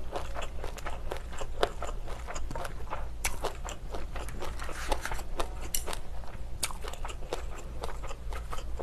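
Close-miked chewing of a mouthful of spicy braised pork ribs with bean sprouts: wet smacking with many small, irregular crunches and clicks.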